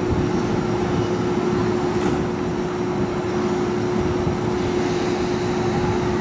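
JR East E233 series 5000 electric train standing at the platform, humming steadily with one constant tone over an even wash of noise from its onboard equipment.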